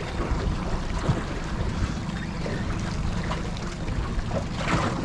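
Wind buffeting the microphone aboard a small aluminium boat on open water, a steady low rumble with sea noise underneath.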